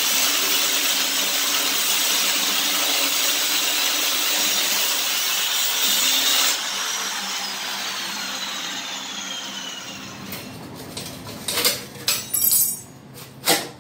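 Handheld angle grinder cutting through the steel fender mounts of a mini bike frame, a steady loud grinding hiss. About six and a half seconds in it comes off the metal and the disc spins down with a falling whine. Near the end come a few metal knocks and rattles as the loosened fender is handled.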